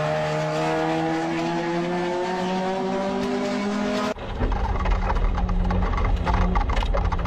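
A race car engine note rising steadily as it comes up the track. About four seconds in the sound cuts abruptly to the inside of a race car's cockpit: a louder, rougher engine with heavy rumble.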